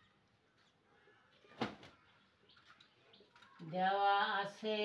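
A single sharp knock about a second and a half in, then near the end a loud, drawn-out voice sound at a fairly steady pitch that breaks briefly and resumes.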